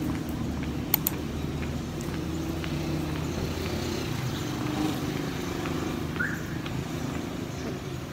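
A vehicle engine running steadily as a low rumble, with two sharp clicks about a second in.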